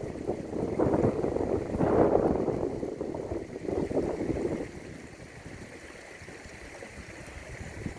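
Strong wind gusting against the microphone over the steady rush of flowing river water. The gusts die down a little past halfway, leaving the water's even hiss.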